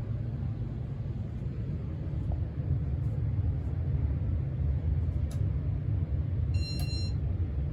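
Steady low rumble of a loud HVAC system, with a Casablanca Spirit of Saturn ceiling fan running on speed 2. A brief high beep sounds near the end.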